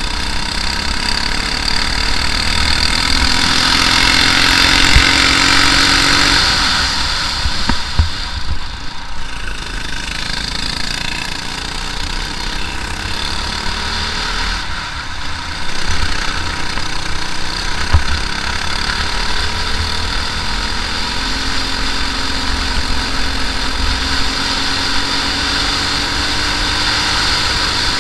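Briggs & Stratton LO206 single-cylinder four-stroke kart engine running at racing speed, its pitch rising and falling as the kart accelerates out of corners and lifts for the next. A few sharp knocks come through now and then.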